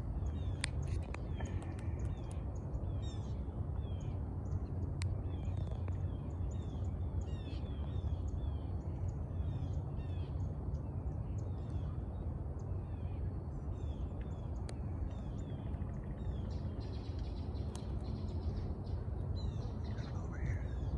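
Small birds chirping with many short, quick, down-slurred notes, over a steady low rumble, with a few sharp ticks here and there.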